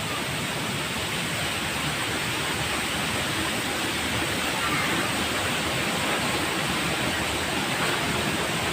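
Steady rushing of flowing water, an even, unbroken roar of a waterfall or stream.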